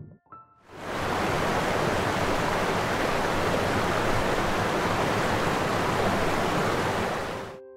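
Steady, even rushing noise with no pitch in it, coming in under a second in and dropping away just before the end.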